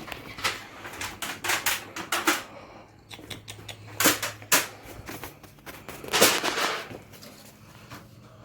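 Irregular sharp clicks and knocks, with a longer rustling scrape about six seconds in, over a steady low hum.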